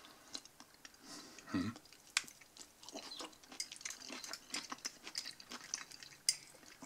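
Black plastic fork stirring and scooping saucy sauerkraut in a paper cup: faint wet squelches and small scattered clicks.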